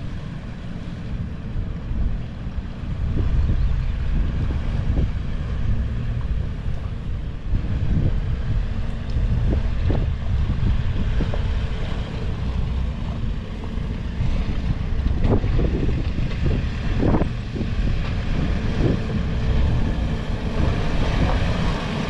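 A 4x4 vehicle driving slowly over a rough green lane: a steady low rumble with wind buffeting the microphone, and several sharp knocks scattered through.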